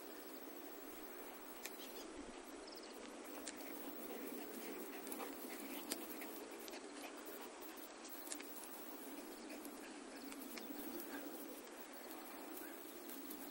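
Large dogs, a Saint Bernard and a Newfoundland, panting close by over a steady low hiss, with scattered light clicks.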